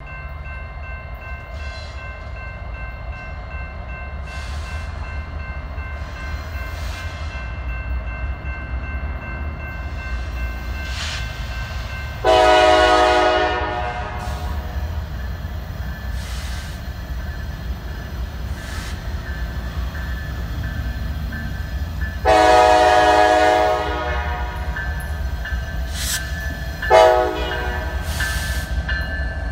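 Norfolk Southern SD70ACU diesel locomotive's air horn sounding for a grade crossing: two long chord blasts about ten seconds apart, then a short one near the end, the start of the long-long-short-long crossing signal. Underneath, the grade-crossing bell rings steadily over the low rumble of the approaching train.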